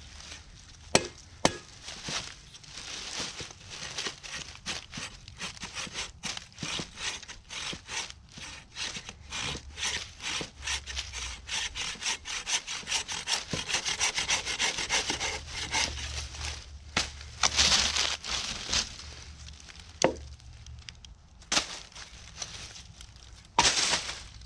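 Hand saw cutting through wood with quick, steady back-and-forth strokes, broken later by a few sharp knocks.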